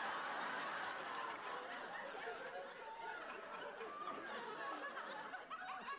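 Sitcom studio audience laughing: one long, unbroken laugh from many people.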